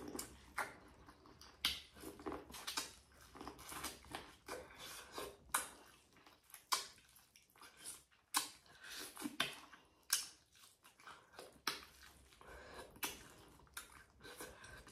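Close-up eating sounds from a seafood boil: chewing with many short, sharp clicks and crackles from handling the food and utensils.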